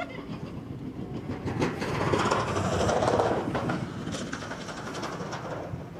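Chairlift haul rope and chair grips clattering over the sheaves of a lift tower, a rumbling rattle that swells to a peak in the middle and then eases off.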